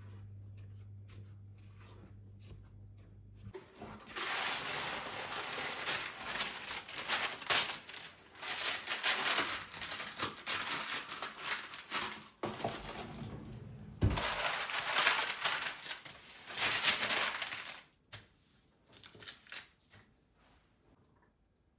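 A low steady hum that stops about three and a half seconds in, then crinkling and rustling as something is handled, in long bursts with short breaks, dying away near the end.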